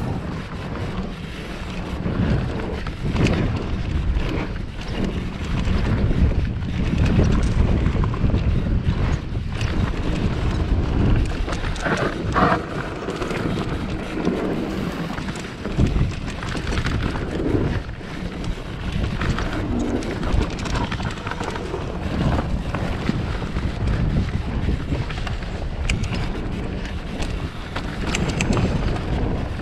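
Wind buffeting the microphone of a mountain bike rider going down a dirt trail, with steady rumbling from the tyres and occasional knocks and rattles from the bike over bumps.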